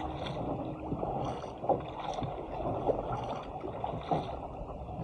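Water rushing and splashing along the hull of a surfski paddled through small waves, with the paddle blades dipping into the water roughly once a second.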